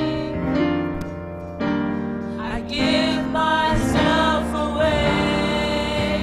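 Gospel worship music: sustained keyboard chords, with a solo singing voice coming in about two and a half seconds in and holding long, wavering notes.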